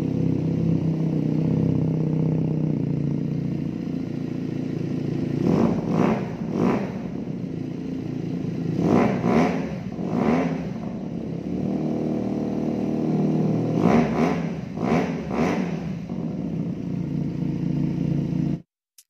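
Benelli TNT 250 motorcycle engine running through an aftermarket racing slip-on exhaust, idling steadily, with three sets of quick throttle blips of two to four revs each. The sound cuts off abruptly near the end.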